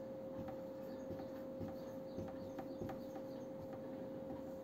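Felt-tip marker squeaking and scratching on a whiteboard in short irregular strokes as words are written, faint, over a steady low hum.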